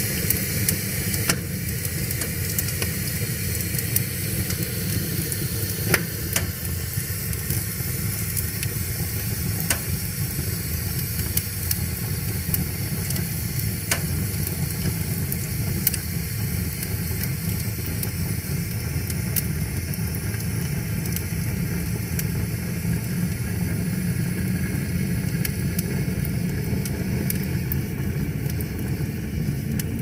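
Wood fire of split logs burning in a metal fire bowl: a steady low rumble and hiss of the flames, with sharp crackles and pops every few seconds.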